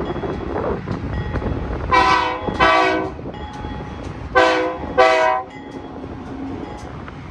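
Diesel freight locomotive's multi-chime air horn sounded as a salute: two back-to-back blasts, then after a short gap two more. Under it runs the low rumble of the passing train and wind.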